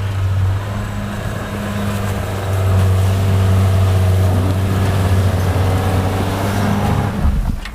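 Engine of an off-road vehicle running steadily under load, a low hum with a hiss of noise over it. It cuts off abruptly near the end.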